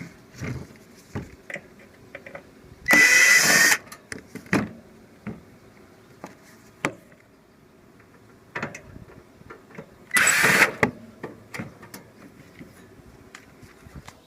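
Cordless drill-driver running in two short bursts, about three seconds in and again near ten seconds, backing screws out of a window air conditioner's case. Small clicks and handling knocks come between the bursts.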